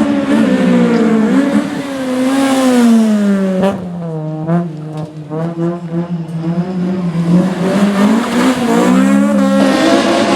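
Rally car engine at high revs, its pitch falling as the driver lifts off, with a run of sharp cracks from the exhaust in the middle. It runs low for a few seconds, then revs climb again near the end.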